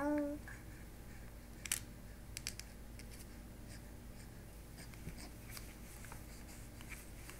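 A baby's short coo right at the start, rising slightly and then held for a moment, followed by a few sharp clicks.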